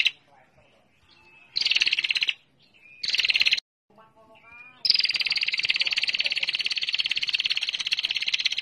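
Female prenjak (prinia) giving its rapid, buzzing 'ngetir' trill: two short bursts, then about five seconds in a long unbroken trill that carries on. Faint, lower chirping calls sound in the gaps between bursts.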